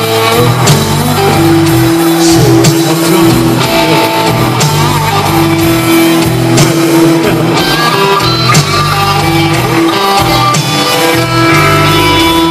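Live blues-rock band playing an instrumental passage: electric guitar lines over a bass guitar.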